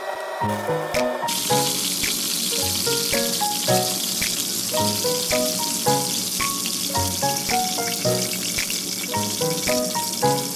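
Fish nuggets deep-frying in oil in a cast-iron skillet: a steady hissing sizzle that starts about a second in. Background music with a melody of short notes and a bass line plays throughout.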